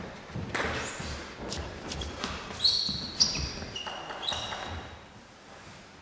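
Table tennis ball bouncing with a few sharp clicks while players shuffle into position for a serve, sports shoes squeaking briefly on the hall floor about halfway through.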